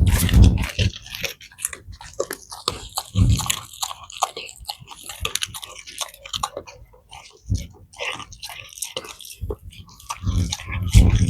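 A Rottweiler chewing a raw chicken carcass and raw meat: bones cracking and crunching in quick, uneven bites, with a few heavier low thuds in between.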